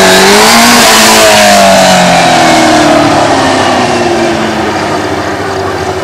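Motorcycle engine revving, its pitch rising and falling, then dropping lower and fading as the bike rides away.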